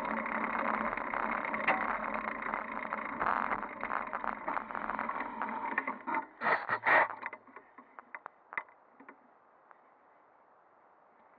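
A bicycle rolling on asphalt, heard through a handlebar-mounted camera as a steady mix of tyre noise and mount rattle. About six seconds in, a few loud knocks come as the bike stops, followed by scattered faint clicks and then near silence.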